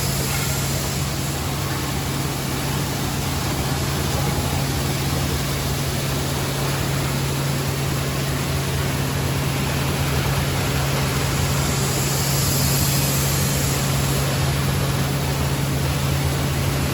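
Maize grits milling machinery running steadily, a constant low hum under an even rushing noise.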